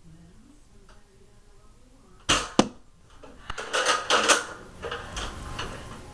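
Nerf Recon spring-plunger dart blaster firing once, about two seconds in: a sharp pop with a second sharp click just after. Then a couple of seconds of clattering and rustling handling noise.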